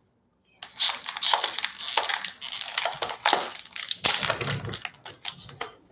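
Foil wrapper of a Magic: The Gathering Ikoria collector booster pack crinkling and tearing as it is ripped open by hand, starting about half a second in.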